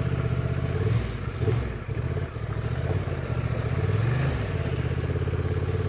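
Honda Transalp adventure motorcycle engine pulling at low speed on a rocky, slippery trail, its revs rising and falling with the throttle: a dip about a second in, a rise around four seconds in, then settling back.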